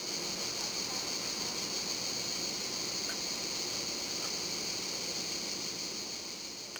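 A steady, even hiss, brightest in the upper range, with no distinct events in it.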